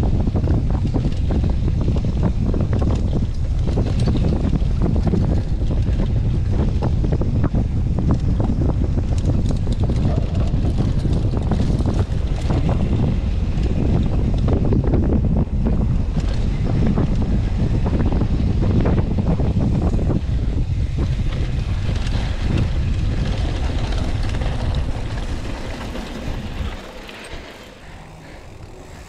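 Wind buffeting a helmet-mounted action camera's microphone on a fast mountain-bike descent, with the clatter and rattle of the bike over rough trail. It quietens near the end as the bike slows.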